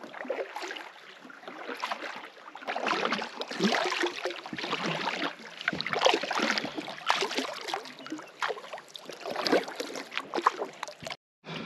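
Kayak paddle strokes dipping and splashing in calm lake water, a stroke about every second, with drips between the strokes. The sound cuts off abruptly about 11 seconds in.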